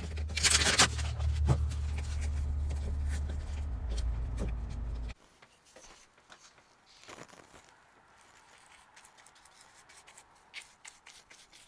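Hands pressing and rubbing a fiberglass patch onto a trailer wall: scraping and rustling handling noise over a steady low hum. About five seconds in it cuts off abruptly to near silence with a few faint ticks.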